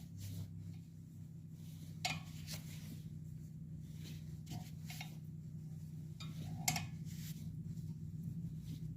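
Scattered light metallic clinks and taps, about seven of them, with the two near two seconds and near the end the loudest. They are metal parts and tools being handled over a steady low hum.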